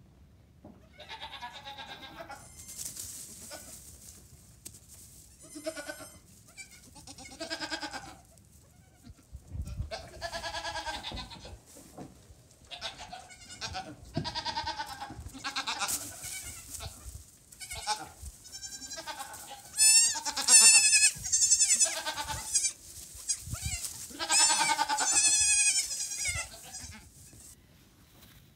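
Nigerian Dwarf goat kids bleating again and again, high wavering calls one after another with short gaps between them, loudest in the last third.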